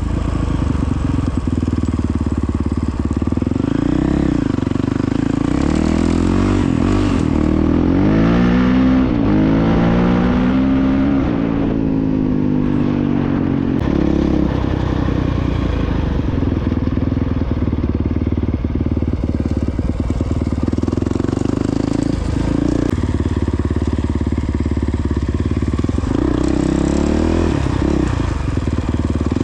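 Honda CRF450X dirt bike's single-cylinder four-stroke engine running under way. Its revs rise and fall several times between about six and twelve seconds in, and otherwise hold fairly steady.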